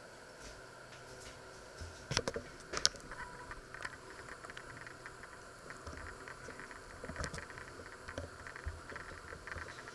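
Faint knocks, rubs and clicks from the camera being handled and shifted, the sharpest two about two and three seconds in, more around seven seconds and near the end, over a low steady hum.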